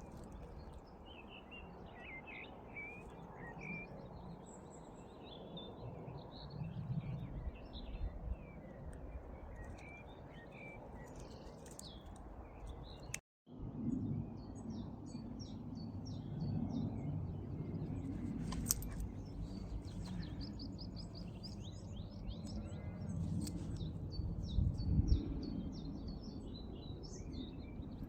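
Small birds chirping and singing in quick short phrases, many calls overlapping, over the low steady rumble of distant road traffic. The sound drops out for a moment about halfway through.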